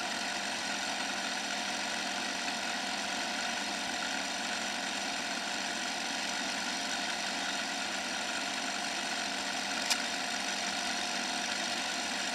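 A steady engine hum, even throughout, with a single short click about ten seconds in.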